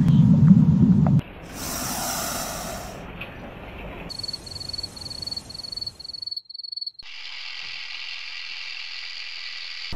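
A run of edited animal-sound clips. A low, wavering elephant rumble breaks off about a second in, followed by a short burst of noisy hissing. Next comes a rapid high chirping at about five pulses a second. The last few seconds are a steady hiss that fits a snake.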